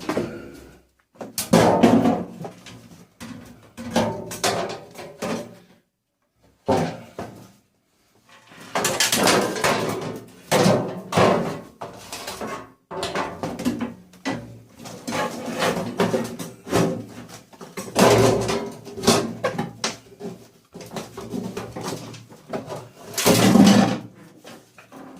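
Plastic scrap pieces and the stripped microwave's sheet-metal casing being handled and pushed together: repeated clattering knocks and rattles, with a short pause about six seconds in.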